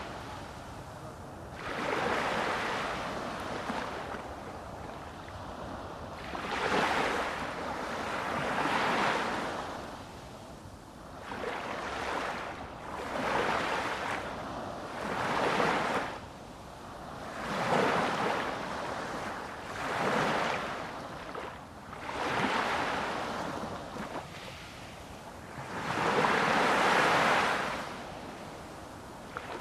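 Sea surf: waves washing in and drawing back, swelling and fading every few seconds.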